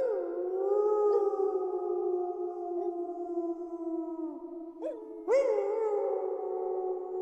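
A pack of wolves howling in chorus, several long howls overlapping and held at different pitches. A new howl sweeps in at the start and another about five seconds in.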